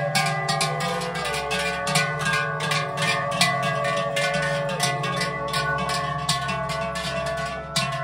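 Large cowbells on walking cows ringing and clanging together in quick, uneven strokes, mixed with plucked-string folk music that sounds like a zither.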